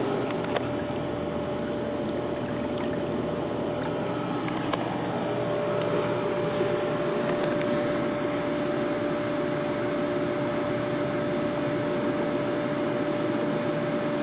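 Steady mechanical hum with a constant whine and a hiss, with a few faint ticks.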